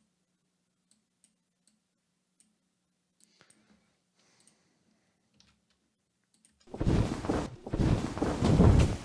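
Faint scattered computer-mouse clicks, then about seven seconds in, playback of recorded wing-flap source sounds for a dragon-wing effect: two loud, noisy flaps of a second or more each, strong in the low end.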